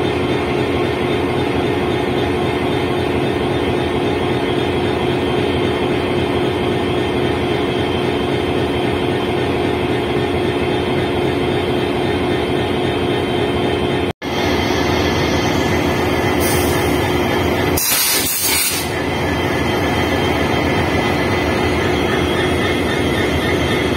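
EMD diesel locomotive (WDP4D, two-stroke V16) engine running steadily, with a steady hum through it. It drops out briefly about fourteen seconds in, and about four seconds later comes a short burst of hiss.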